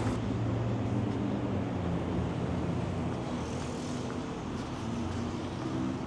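City street ambience: a steady rumble of passing traffic with the low hum of vehicle engines.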